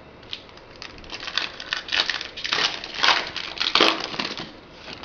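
Foil wrapper of a Bowman Chrome trading-card pack crinkling as it is torn open and handled: an irregular run of crackly rustles.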